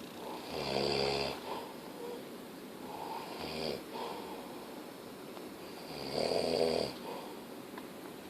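A man snoring in his sleep: two loud, rasping snores about five seconds apart, with a softer breath-snore between them.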